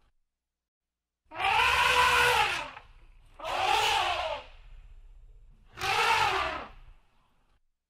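Elephant trumpeting: three loud calls of about a second each, each rising and then falling in pitch, with short gaps between them.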